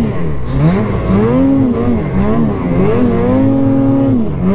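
Snowmobile engine revving up and down as the throttle is worked through deep powder snow, its pitch rising and falling over and over.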